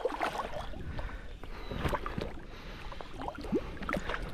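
Creek water splashing and sloshing as a person wades through it, with many short gurgles and splashes.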